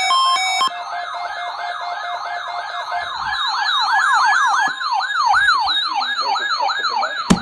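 Electronic emergency alert alarm: a stepped, alternating beeping tone that stops just under a second in, then a siren-like warble of rapid rising-and-falling sweeps, about three a second, with two sweep patterns overlapping for a while in the middle. A sharp click near the end.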